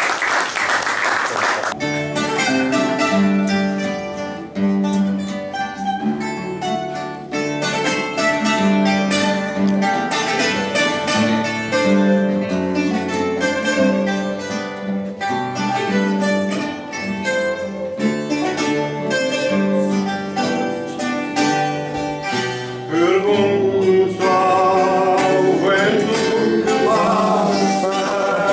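Brief applause, then a Coimbra guitar (Portuguese guitar) and a classical guitar playing the instrumental introduction of a Coimbra fado. About 23 seconds in, a man's voice begins singing over the guitars.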